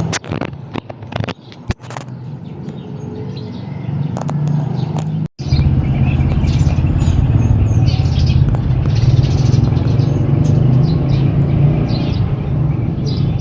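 Steady low rumble of a vehicle with birds chirping over it. It cuts out abruptly about five seconds in, then comes back louder.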